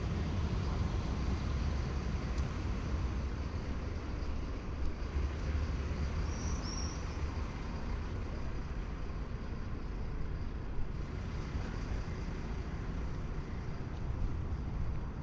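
Steady city traffic rumble, a low even noise with no single vehicle standing out. A brief high chirp comes about halfway through.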